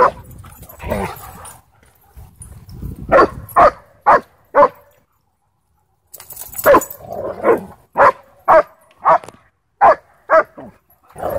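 A dog barking in short, sharp barks during rough play between dogs: a run of four about three seconds in, then, after a brief silence, a second run of about seven, roughly two a second.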